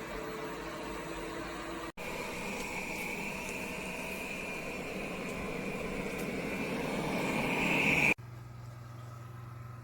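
Airzeen R7 robot vacuum running: a steady whir of its suction motor. The sound cuts abruptly twice; in the middle stretch a high whine grows louder, and after the second cut only a quieter low hum remains.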